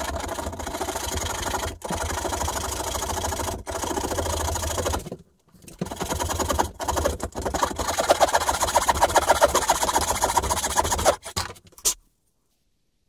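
Narrow hand saw rasping through a beech plane body, cutting the mouth opening out through a row of drilled holes. Continuous sawing with a few brief breaks, stopping about twelve seconds in.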